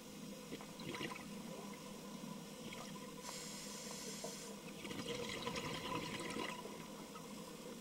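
Scuba diver breathing through a regulator underwater: a short hiss of inhalation about three seconds in, then a longer burble of exhaled bubbles, with a brief bubble burst near the start.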